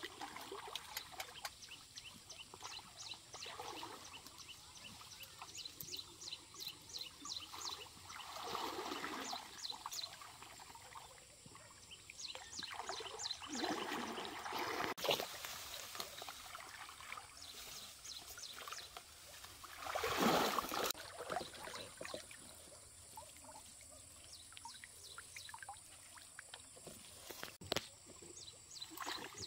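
Stream water splashing and trickling: many small drips and splashes in the first half, then a few louder sloshes, the loudest about twenty seconds in.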